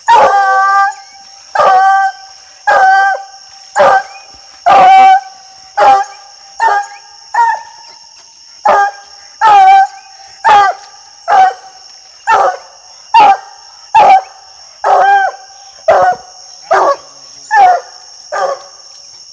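Black and tan coonhound barking at the base of a tree, about twenty loud barks at roughly one a second: the steady treeing bark of a hound that has its quarry up the tree. A steady high trill of night insects runs underneath.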